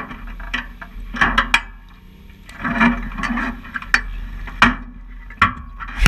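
Irregular rustling, knocks and clicks close to the microphone over a low steady hum.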